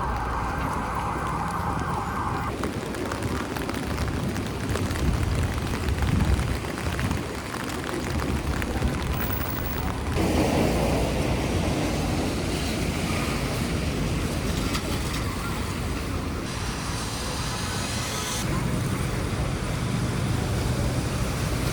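City street ambience in the rain: a steady hiss of rain mixed with passing traffic, changing abruptly a few times as one shot cuts to the next.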